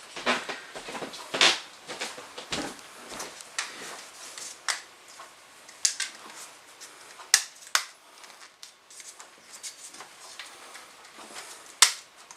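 Hand-held survival saw cutting a wooden stud in short rasping strokes, about two a second. Later come a few sharp clicks and knocks.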